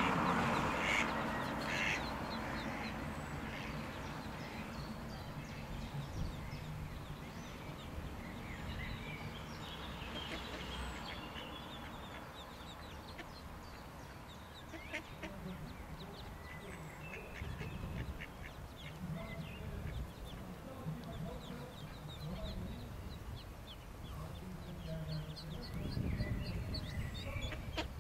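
Mallard ducklings peeping, many short high chirps scattered throughout, over a low rumble.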